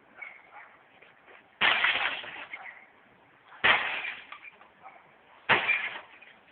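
Three heavy blows striking an old TV set, about two seconds apart, each a sharp crash of breaking glass and plastic.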